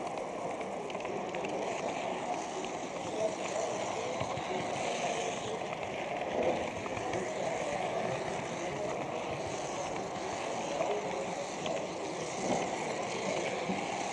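H0 model train running along its track, a steady rolling rumble with small clicks, heard from a camera riding on the train, with faint voices in the background.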